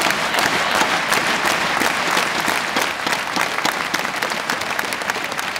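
Hall crowd applauding after a rally ends, many hands clapping, thinning a little toward the end.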